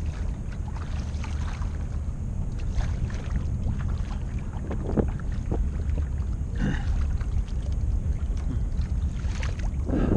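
Kayak paddle strokes splashing in the water every few seconds, the largest near the end, over a steady low rumble of wind on the microphone.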